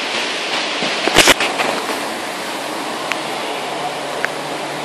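Steady hiss of heavy rain, with one sharp knock about a second in and a few faint ticks.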